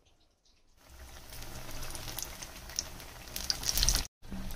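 Battered pakoras deep-frying in hot oil in a kadhai: a steady sizzle with scattered crackles, starting about a second in and broken off briefly near the end.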